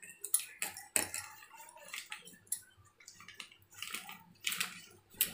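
Polythene sheet crinkling and rustling under a wooden rolling pin as it rolls cashew dough flat. The rolling comes with irregular light clicks and knocks against the worktop.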